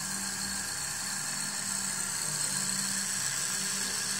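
Small DC motor driving a model belt conveyor, running with a steady hum.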